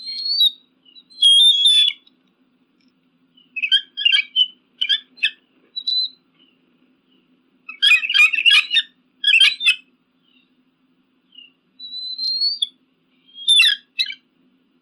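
Eagle calling: bursts of high, thin piping and chattering calls separated by silent gaps, with the loudest flurry about eight seconds in.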